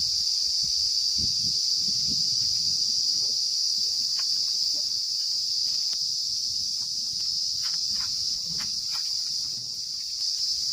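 Steady high-pitched chorus of insects, the loudest sound throughout, over a faint uneven low rumble, with a few short faint chirps about two-thirds of the way in.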